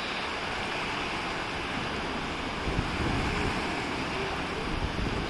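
Surf washing on a rocky shore, a steady rush, with wind rumbling on the microphone.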